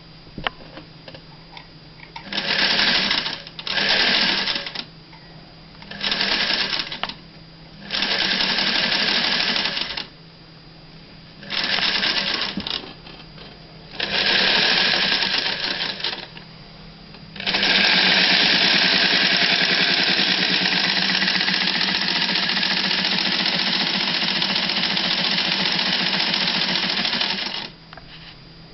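Csepel 30 sewing machine driven by its MSh-2 electric motor, started and stopped in six short runs of a second or two each, then run continuously for about ten seconds before stopping near the end.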